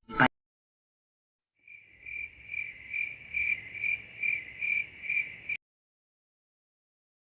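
Cricket chirping sound effect: a series of about nine high, evenly spaced chirps, a little over two a second, starting nearly two seconds in and cutting off suddenly.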